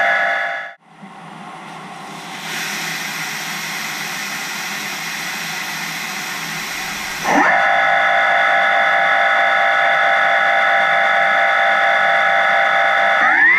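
High-pressure coolant jet spraying from a PHC-SA-C slim hydraulic chuck inside a CNC machine, a steady hiss. About halfway through, a quick rising whine from the machine joins it and holds as a steady high whine, shifting pitch again near the end.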